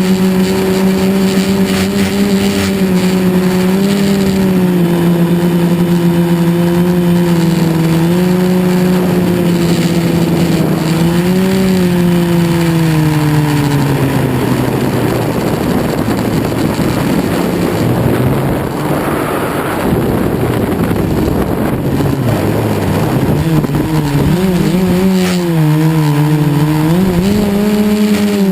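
Quadcopter's brushless motors (KDA 20-22L) and propellers humming at a steady pitch that wavers as the throttle changes. About halfway through the pitch falls and a rough rushing noise takes over for several seconds, then the motor tone climbs back near the end.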